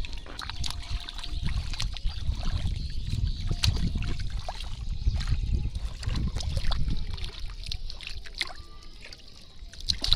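Shallow water splashing and trickling, with many scattered sharp splashes and drips over a steady low rumble.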